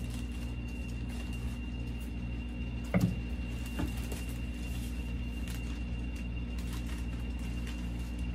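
Plastic packaging bag crinkling as it is cut with scissors and pulled off a foam model-jet wing, with a sharp knock about three seconds in and a softer one just after. A steady low hum runs underneath.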